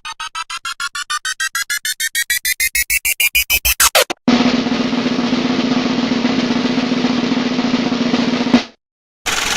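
Sound effects played back to back: a drum-roll-like riser, its beats speeding up and climbing in pitch for about four seconds before cutting off, then a steady buzzing noise with a low hum for about four seconds that stops abruptly. A moment of silence follows, then another steady noise starts near the end.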